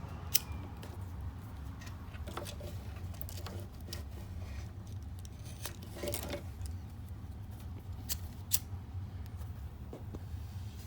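Sharp clicks of a hand-held lighter being struck: two loud clicks, one just after the start and one near the end, with a few softer clicks between, over a steady low hum.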